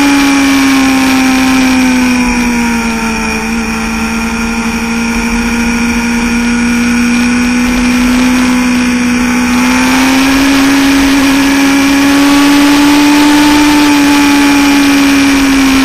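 Sport-bike engine running hard on a track lap, heard from an onboard camera over a steady rush of noise. Its pitch eases down about two seconds in, holds, climbs again in the second half, then drops near the end.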